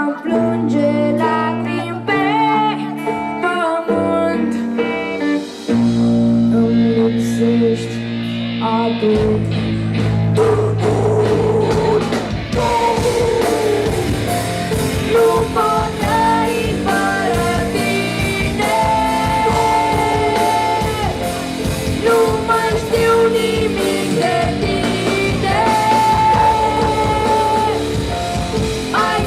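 A metal band playing live. Picked guitar notes sound alone at first. Bass comes in about nine seconds in and drums a few seconds later, and the full band plays on with a held melody line over it.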